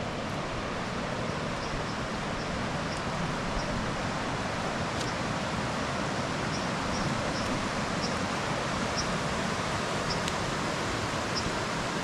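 Shallow mountain river rushing steadily over rocks, a continuous even hiss, with faint short high chirps over it.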